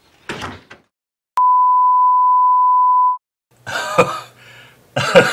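A single loud, steady electronic beep at one pitch, starting a little over a second in and lasting about two seconds. It is followed near the end by voices and laughter.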